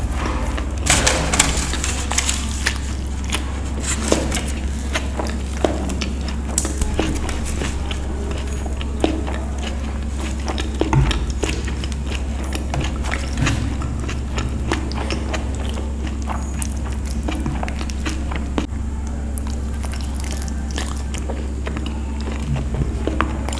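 Close-up sounds of a person eating naan and paneer curry with her hands: wet chewing and lip smacks, heard as many short clicks at an uneven pace. A steady low hum runs underneath.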